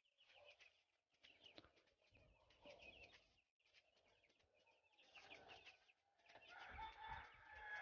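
Faint birds calling in the background, short repeated chirps that grow louder near the end.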